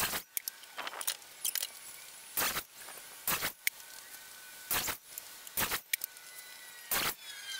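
Sharp wooden knocks and clatters at irregular intervals, about a dozen in all, as cut 2x4 boards are handled and set down.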